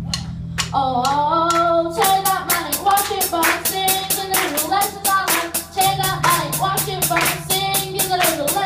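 Live band music: a young singer singing a melody over an electric guitar, keyboard and drum kit. The drums come in about two seconds in with a fast, steady beat under held low chords.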